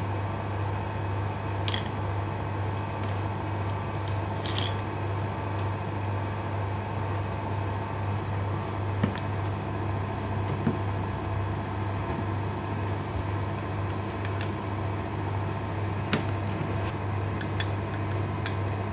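A steady low mechanical hum, with a few light clicks and taps of an angle grinder's metal flange lock nut and pin spanner being handled as the disc is fitted.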